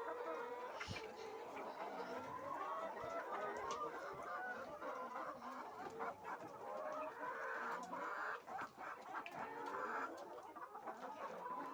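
A flock of laying hens clucking continuously, many birds calling over one another.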